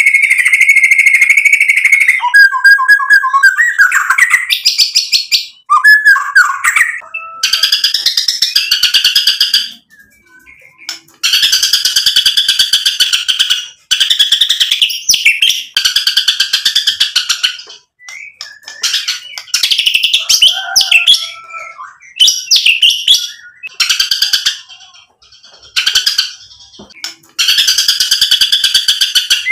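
Male white-rumped shama (murai batu) in full, loud song: long runs of fast rasping rattles and whistled phrases, broken by short pauses. It is the aroused, competitive song that keepers call gacor, the bird running through its whole repertoire.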